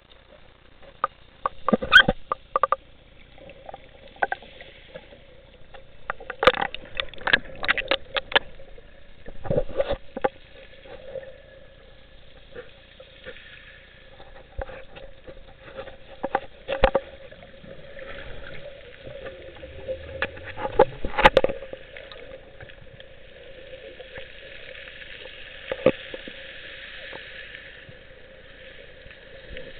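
Muffled underwater audio picked up inside a camera housing: scattered sharp clicks and knocks, in clusters about two, seven, ten, seventeen and twenty-one seconds in, over a faint steady hum and a soft hiss.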